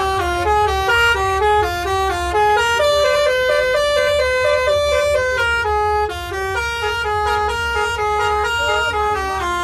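Bus telolet horn: a tour bus's multi-tone musical horn playing a quick tune of short stepped notes, over a low steady rumble.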